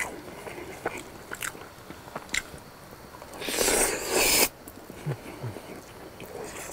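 Close-up chewing of a freshly fried, hot-sauce-coated pork cutlet, with scattered crisp crunches of the breading. About three and a half seconds in, a loud breathy rush of air through pursed lips lasts about a second.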